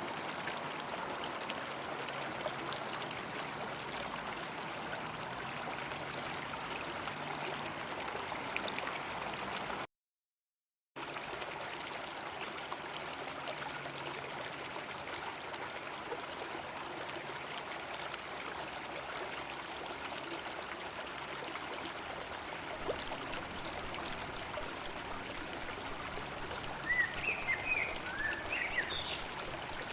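River water flowing with a steady rushing babble. The sound drops out completely for about a second about a third of the way in. A few short, high chirps come near the end.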